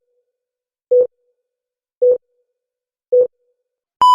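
Electronic beeps: three short, low beeps about a second apart, then a longer, higher beep that starts right at the end.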